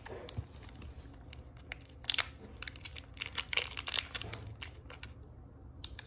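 Small plastic packaging bag crinkling and crackling in the hands as a tiny toy is worked back inside it: irregular crackles, busiest about two seconds in and again around three and a half to four seconds, briefly thinning out near the end.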